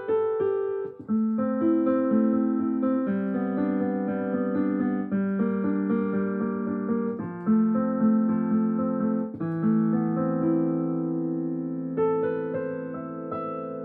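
Piano music: sustained chords with single notes above, a new chord struck every second or two.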